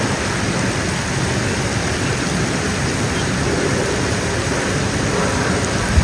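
Steady rush of a waterfall: an even, unbroken noise of falling and churning water.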